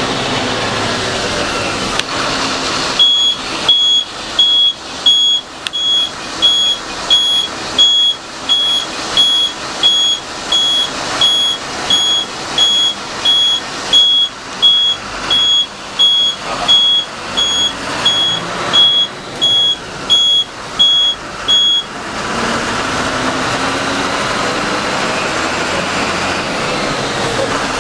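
Moving bus heard from the driver's cabin: a steady engine and road drone. A few seconds in, a high electronic beep starts repeating about twice a second from the dashboard. It goes on for some twenty seconds, then stops.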